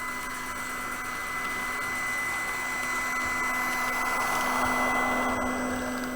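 LUX H0 model-railway track-vacuum car running, its small suction fan making a steady whirring hiss with a constant whine, growing somewhat louder about four seconds in.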